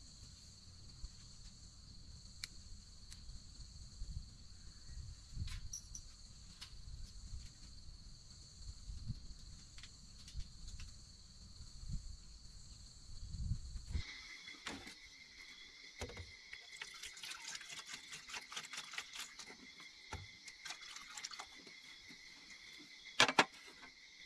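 Insects calling in a steady, high chorus over a low, uneven rumble. About two-thirds of the way through, the chorus changes abruptly to a different set of high tones, and a run of sharp clicks and knocks follows, with two loud clicks near the end.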